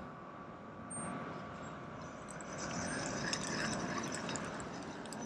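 Soft lake water lapping and trickling, with a few faint high ticks.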